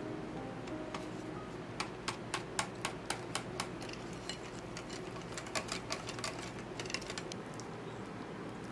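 Wire whisk clicking against a glass mixing bowl as matcha powder is whisked into crepe batter, in two runs of quick clicks, about five a second.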